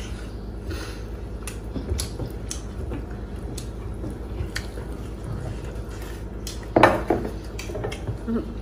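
Hand-eating at the table: small clinks and scrapes on metal dinner plates, a small brass bowl tapping as broth is poured from it over rice, with a steady low hum underneath. A louder, ringing sound comes about seven seconds in.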